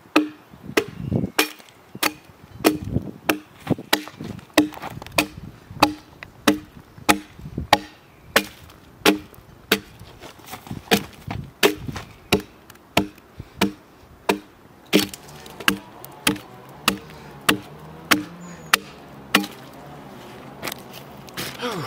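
Asymmetrical hewing broad axe chopping into the side of a conifer log in steady, evenly spaced strokes, about one and a half a second, each a sharp wooden chop. A faint low steady hum joins under the strokes about two-thirds of the way through.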